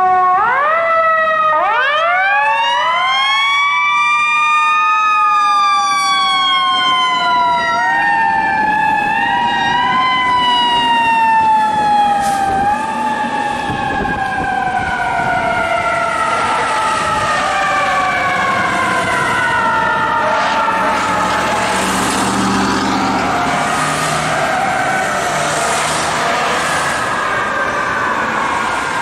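Fire apparatus sirens from a fire engine and a ladder truck responding. A siren winds up fast at the start, then slowly falls in pitch and is pushed back up a few times, with more sirens overlapping it later.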